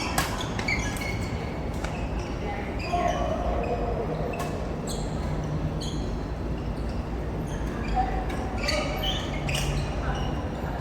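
Badminton rackets hitting a goose-feather, cork-headed shuttlecock in a rally. Sharp hits come every second or so, mixed with short high squeaks.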